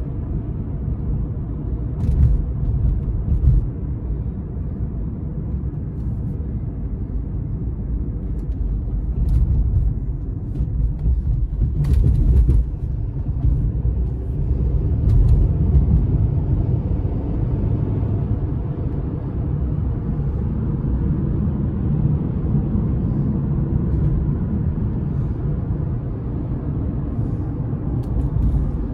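Inside a moving car's cabin: a steady low rumble of engine and road noise, with a few brief knocks and rattles.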